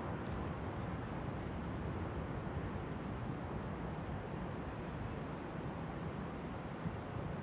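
Steady rushing noise of ocean surf breaking far below, mixed with a low, unsteady wind rumble on the microphone.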